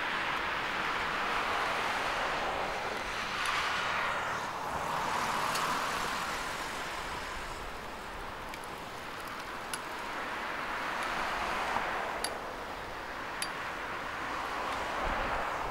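Road traffic: cars passing on an adjacent two-lane road, their tyre and engine noise swelling and fading twice, about four seconds in and again near the end.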